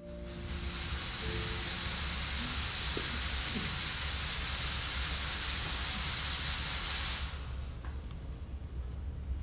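Stage smoke machine spraying with a loud, steady hiss that cuts off suddenly about seven seconds in, over a low steady hum.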